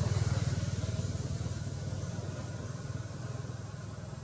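A motor vehicle engine running with a low, rapidly pulsing hum that gradually fades away.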